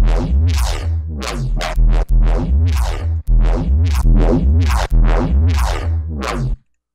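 Resampled synth bass played back from FL Studio's Harmor: a fast run of heavy notes, each with a deep sub-bass and a bright top that sweeps down. It stops abruptly shortly before the end.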